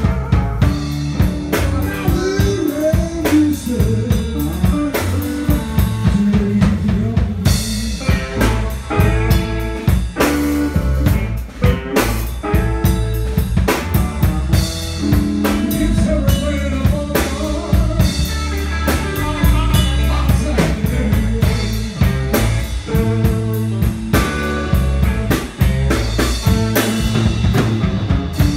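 Live blues band playing an instrumental passage: two electric guitars over electric bass and a Pearl drum kit keeping a steady beat.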